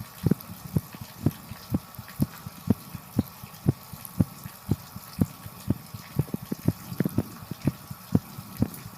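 A fast human heartbeat picked up close, a steady run of low thumps at about two beats a second, over the even hiss of shower water.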